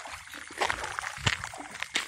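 Pond water splashing and sloshing at the bank in a few irregular bursts.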